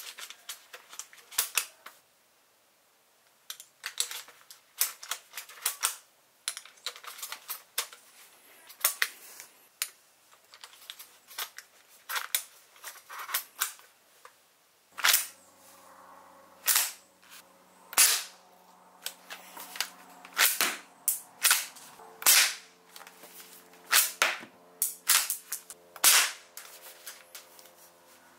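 Airsoft lever-action rifle: quick metallic clicks of the action being worked and loaded, then from about halfway through loud sharp shots roughly once a second, each with the clack of the lever being cycled.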